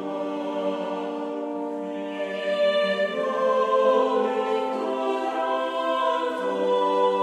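Slow background music of long held notes sounding together, changing every second or two, with a choir singing.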